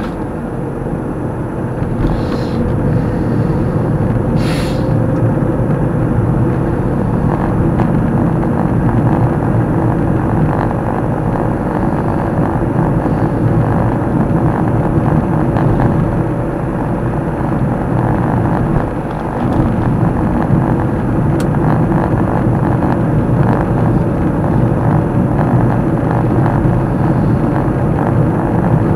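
Steady road and engine noise of a car driving, heard from inside the cabin. Two short hisses come a couple of seconds apart near the start.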